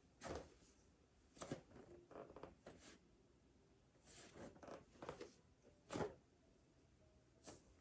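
Faint rustling and brushing of clothing and a mat as a person performs full prostration bows: a string of short scrapes about a second apart, the loudest about six seconds in.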